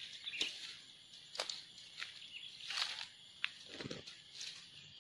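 Dry grass and brush rustling and crackling in irregular bursts as a person crouches and moves through the undergrowth.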